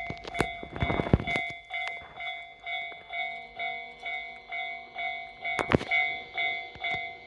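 Railway level-crossing warning bell ringing, a steady repeating ding about twice a second. There are several sharp knocks in the first second and a half and another near the end, and a low steady hum comes in about three seconds in.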